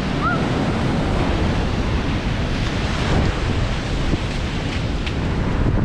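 Sea surf washing onto a sandy beach, a steady rush of noise, with wind buffeting the microphone.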